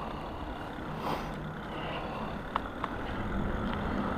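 E-bike under way: a steady rumble of tyres and wind, with two sharp clicks about two and a half seconds in.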